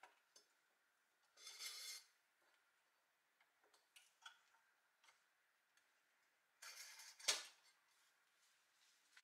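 Faint metal handling on a pressed-steel toy road grader: light clicks and two short scrapes as a thin steel wire is worked through its circle ring, the second scrape ending in a sharp click.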